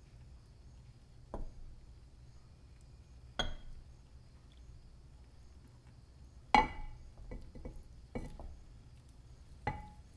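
Glass measuring cup clinking: several sharp clinks spread out, the loudest about six and a half seconds in with a brief ring. A faint low hum runs underneath.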